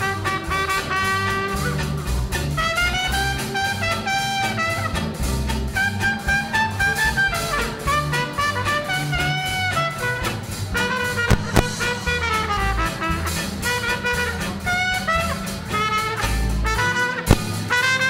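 Small swing jazz band playing an instrumental passage, horns carrying the melody over upright bass, drum kit and rhythm guitar, with a few sharp drum accents.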